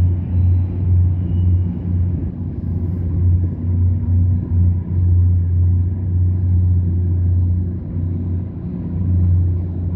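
Steady low rumble of a train in the subway tunnel, swelling and easing slightly.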